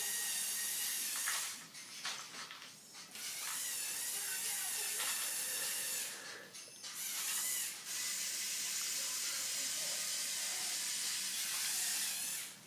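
Small electric motors and gearing of a motorized Lego Technic Volvo L350F wheel loader running with a high hiss, stopping and starting three times.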